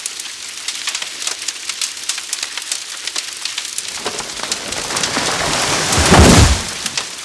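Forest fire crackling and popping steadily. About four seconds in, a deep rush of noise builds, peaks as the loudest sound, and then drops off suddenly.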